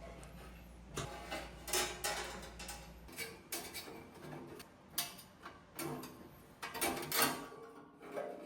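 Irregular light knocks and clicks of a metal espresso-machine case being handled and set into an oven.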